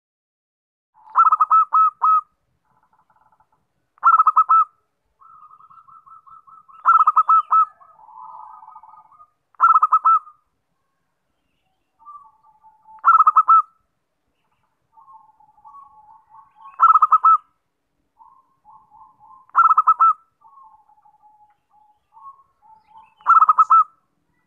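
Zebra dove (perkutut) cooing: a loud, rapid trilled phrase about every three seconds, eight in all, with softer trills between them. This is the perkutut's lure call (suara pikat), played to draw in other zebra doves.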